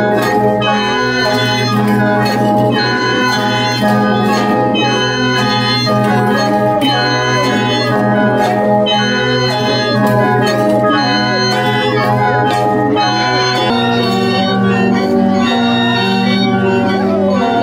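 An ensemble of Mro plung, bamboo free-reed mouth organs, played together: a dense, sustained, organ-like chord with a moving melody and a sharp beat about every two seconds. The chord shifts about fourteen seconds in.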